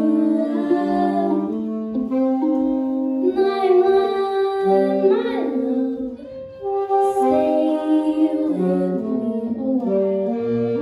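Slow jazz ballad with a woman singing over long, held chords from alto saxophone, tenor saxophone and violin; the chords change roughly every second, and the voice slides between notes about halfway through.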